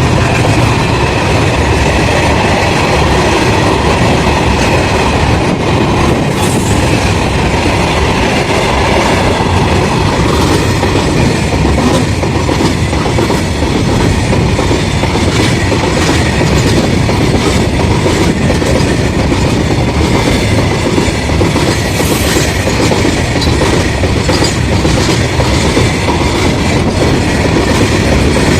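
A train's coaches passing at close range, wheels clattering over rail joints in a steady, loud run of clicks.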